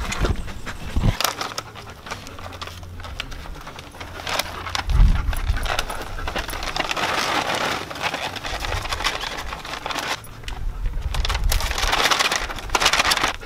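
Clear plastic bag crinkling and rustling as it is handled, with a dull thump about five seconds in.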